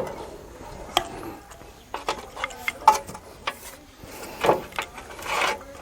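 Irregular metallic clicks, knocks and clinks of a motorcycle's drum-brake hub and brake-shoe assembly being handled and pulled out of the wheel, some with a short ring.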